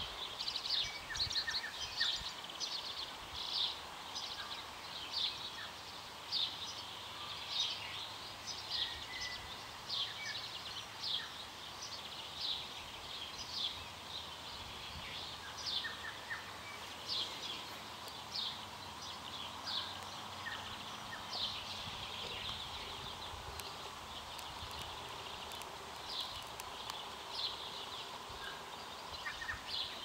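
Birds chirping and singing, short high calls coming about once or twice a second, over a steady faint hiss of trickling creek water.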